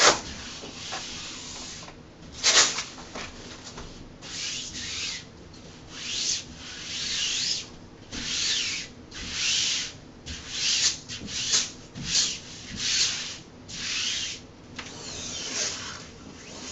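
Repeated rubbing strokes, about one a second, smoothing a peel-and-stick vinyl wall mural down onto the wall to push out air bubbles, with two louder sharp crackles in the first few seconds.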